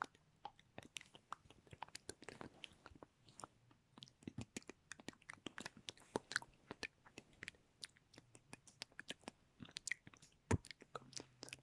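Close-miked ASMR mouth sounds: an irregular run of wet clicks and smacks from the lips and tongue, with one louder pop near the end.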